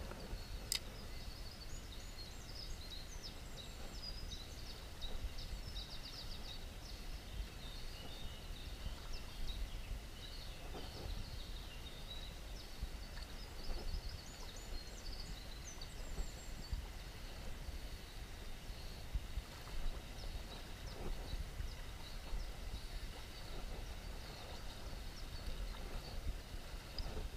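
Outdoor river ambience: flowing water of a shallow stream with a steady low rumble, and small songbirds chirping and trilling high above it, busiest in the first half.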